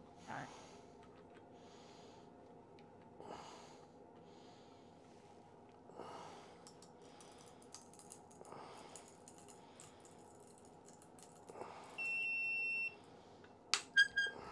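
Digital force gauge beeping: one steady high beep lasting almost a second about twelve seconds in, then clicks and two or three short beeps near the end. Before this come soft breaths every few seconds and faint crackling ticks as the probe is forced into a 30% infill PLA cube.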